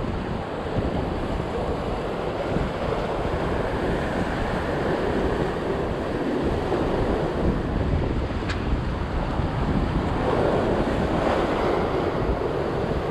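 Sea waves breaking and washing over the rocks just below, with wind buffeting the microphone. A single short click about two-thirds of the way through.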